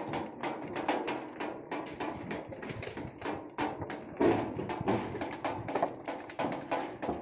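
Several hammers knocking irregularly on wooden planks, the strikes overlapping several times a second, with one louder knock about four seconds in.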